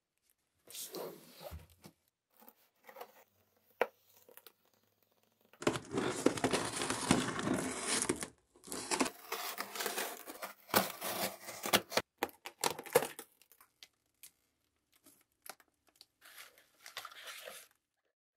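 Plastic stretch wrap and packing tape on a cardboard box being slit with a box cutter and torn open, with crinkling plastic and rustling cardboard, in several bursts. The loudest is a long tearing stretch midway, followed by a run of sharp cuts and rips, then a shorter crinkle near the end.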